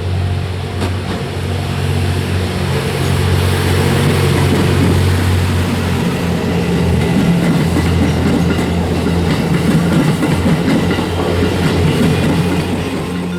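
JR West 87 series diesel train passing: a steady low diesel engine drone with the clatter of wheels over the rails, growing louder about four seconds in.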